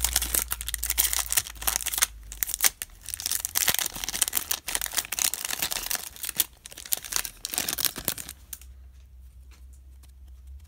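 Foil wrapper of a 2019 Bowman baseball card pack being torn open and crinkled by hand, with dense crackling for about eight seconds. It then goes quiet apart from a few light clicks as the cards are handled.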